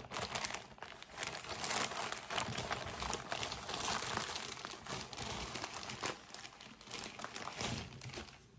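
Clothing packaging crinkling and rustling as it is handled and opened, dying away near the end.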